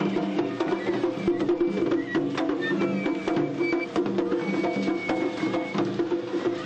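Japanese festival float music (matsuri-bayashi): fast, dense drum and percussion strokes over steady sustained tones, with a few brief high whistle-like notes.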